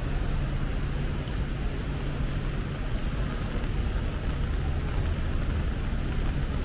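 Steady low rumble of city traffic, with a constant low engine hum under it.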